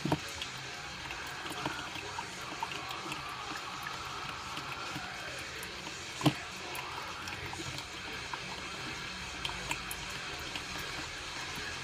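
Drip coffee maker brewing: a steady hiss and gurgle of water with many small drips and ticks, and a sharper pop just after the start and another about six seconds in.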